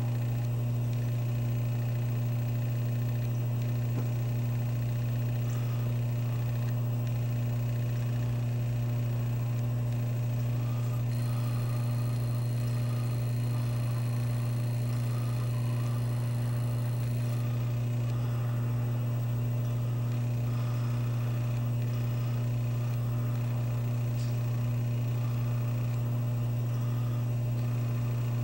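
Steady low electrical hum at an even level, with a faint high-pitched tone joining for about six seconds in the middle.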